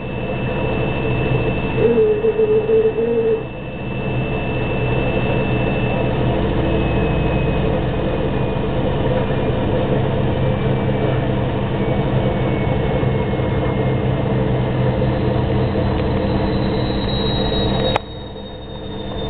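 Bosch WOT26453FF top-loading washing machine running, with a steady mechanical hum and a wavering whine that comes twice in the first few seconds, plus a thin high whistle. This is the abnormal noise the machine makes during its rinse. About 18 seconds in there is a click and the sound drops suddenly.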